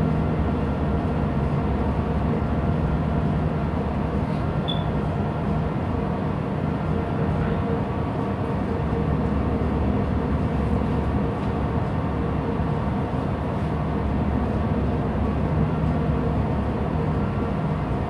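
Ship's diesel machinery running with a steady drone that holds several constant low tones, unchanging throughout.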